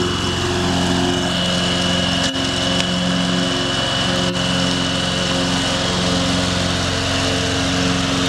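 John Deere X730 lawn tractor's Kawasaki V-twin engine running steadily at full throttle while the tractor drives and mows with the deck blades engaged.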